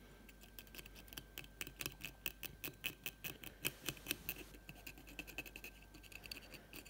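Wooden cocktail stick scraping dried acrylic paint off the plastic body of a model railway wagon: a faint run of quick, irregular little scratches, thickest in the middle.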